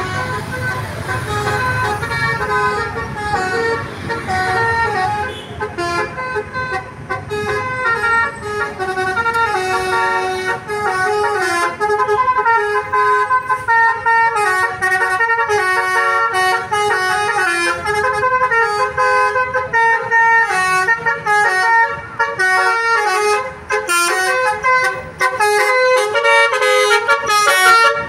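A bus's basuri horn, a multi-trumpet musical air horn, plays a fast tune of stepping notes without pause. It gets louder near the end.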